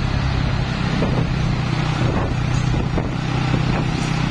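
Vehicle engine running steadily at a constant pitch in traffic, over a thick layer of road and wind noise.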